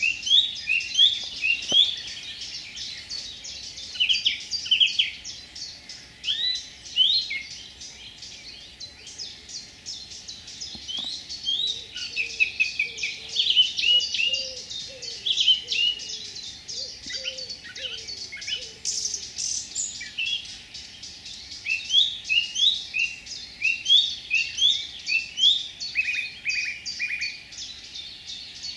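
A warbler of the spotvogel group singing a long, rapid, varied song of short high chirps and twittering phrases, run together with brief pauses. It is a song that mixes many melodies and imitations of other birds.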